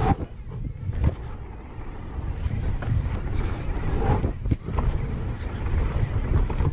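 Wind buffeting the action camera's microphone while a downhill mountain bike rides a dirt trail, with the tyres rumbling over the ground. A few sharp knocks from the bike hitting bumps come about a second in and again about halfway.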